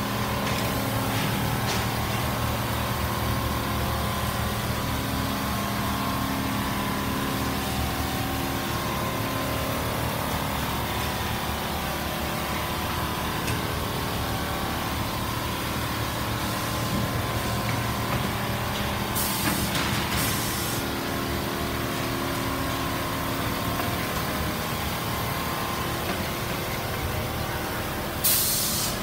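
Computerized quilting machine stitching a comforter: a steady mechanical hum from its motors and needle head, with short hisses of air about two-thirds of the way through and again near the end.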